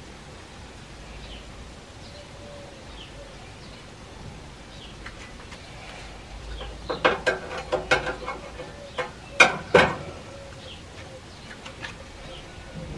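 A run of sharp clicks and clacks from about seven seconds in, the two loudest close together near ten seconds: metal grill utensils knocking against the gas grill. Faint, scattered bird chirps throughout.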